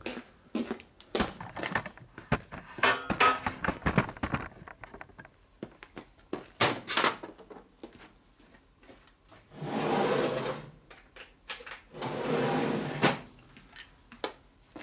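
Scattered clicks, clunks and rattles of metal tools and parts being handled on a steel workbench, mostly in the first few seconds. Later come two rushes of noise, each lasting about a second.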